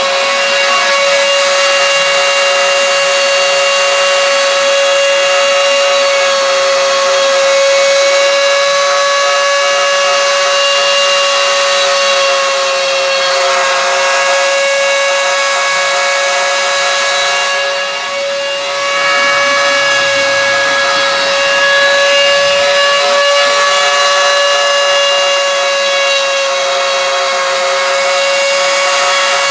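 CNC machine running, with a steady high whine over a cutting noise; the level dips briefly a little past halfway.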